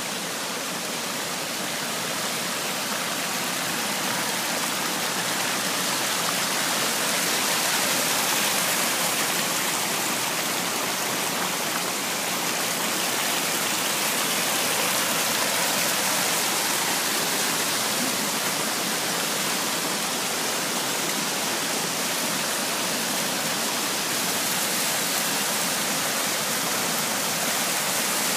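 Creek water rushing steadily over flat rock ledges and small cascades, getting a little louder over the first several seconds.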